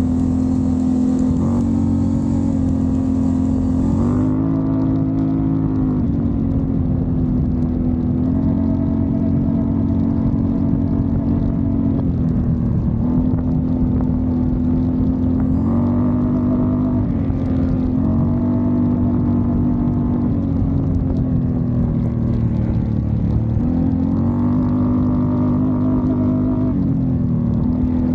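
Can-Am Renegade ATV's V-twin engine running on the trail. Its pitch drops and climbs back several times as the engine speed falls and rises with the throttle.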